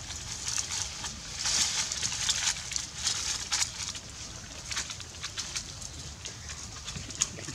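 Dry leaf litter crackling and rustling under macaques scrambling over rocks: irregular sharp crackles with bursts of rustle, busiest in the first half.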